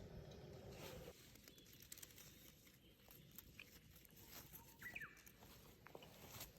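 Near silence, with a few faint ticks and clicks and a brief faint chirp about five seconds in.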